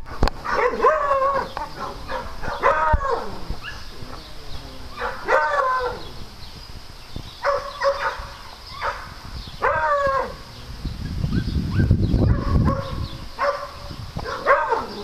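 Beagle baying again and again, a short howl with falling pitch roughly every two seconds. A low rumble comes in for a couple of seconds past the middle.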